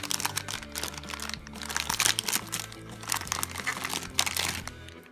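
Blind-bag keychain packet crinkling as it is handled and torn open, over background music that stops near the end.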